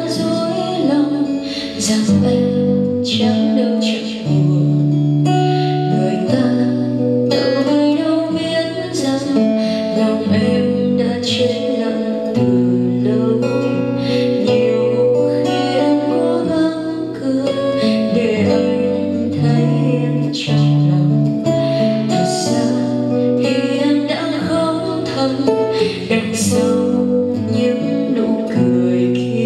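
A woman singing a Vietnamese ballad live into a microphone, accompanied by a strummed acoustic guitar.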